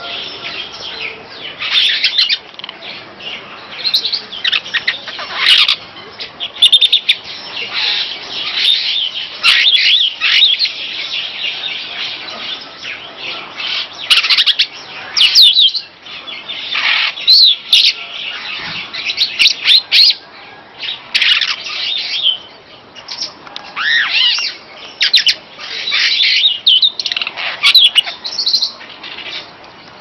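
Superb starling singing: a long, rambling run of chirps, whistles and chattering trills, in phrases of a second or two with brief gaps.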